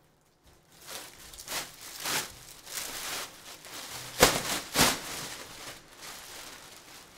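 A pack of Bowman Draft Sapphire baseball cards being opened and the cards handled: a run of crinkling rustles, then two sharp snaps of cards about four and five seconds in.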